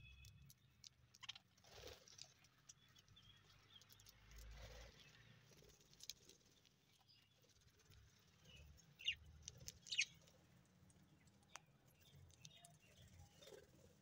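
Faint rustling and pecking of budgerigars feeding in a heap of fresh greens, with two short, high chirps about a second apart a little past the middle.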